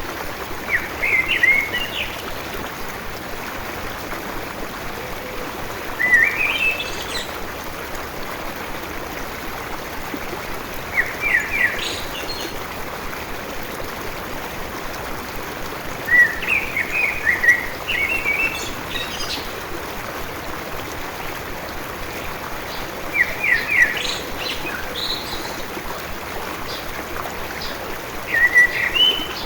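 A songbird sings short chirping phrases, one about every five seconds, over the steady rush of a flowing stream.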